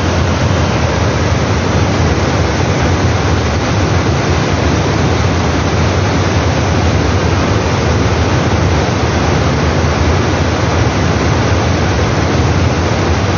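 Flash flood of mud and rock debris rushing down a steep mountain stream gorge: a loud, steady roar, heaviest in the deep low end, without a break.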